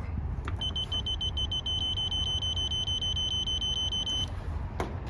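Digital multimeter's piezo beeper sounding a rapid, high-pitched pulsing beep for about three and a half seconds, then cutting off, over a steady low hum.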